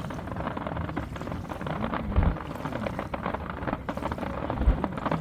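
Fireworks crackling, with two low booms, about two seconds in and near the end, over a steady background of crowd and wind noise.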